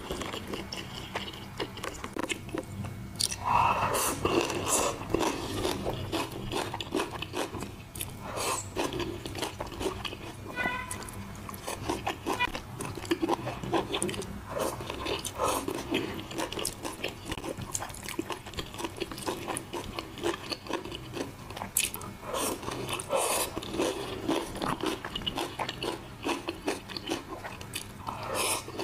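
Close-up eating sounds: a person biting and chewing crispy sweet-and-sour fried pork (guo bao rou) and eggplant, with irregular crunches throughout.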